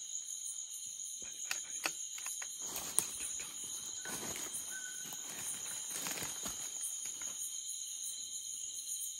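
Night forest insect chorus: a steady shrill drone of several high pitches. Over it come irregular rustles and crackles of footsteps and movement through leaf litter and undergrowth, with one sharp snap about three seconds in.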